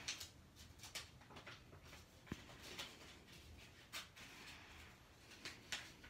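Faint rustling and small crackles of a paper envelope being handled and opened by hand.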